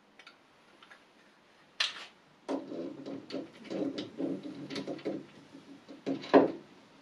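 Heavy steel lathe parts being handled and set down on the cross slide: a sharp click about two seconds in, then a run of metal-on-metal knocks and clatter, the loudest knock near the end.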